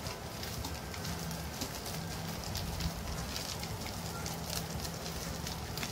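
Homemade purple slime packed with polystyrene foam beads being squeezed and kneaded in gloved hands: a dense, irregular stream of small crackles and pops. A low steady hum runs underneath.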